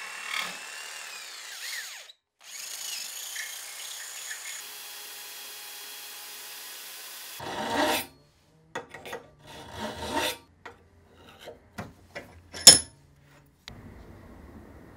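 Jigsaw running as it cuts through a wooden block clamped in a bench vise, its pitch wavering, for about seven seconds. Then scattered knocks and clicks of a metal tube and wood block being handled in the vise, with one sharp click near the end.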